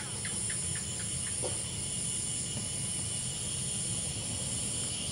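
Steady chorus of insects: a continuous high buzz over a low steady rumble, with a few faint ticks in the first second and a half.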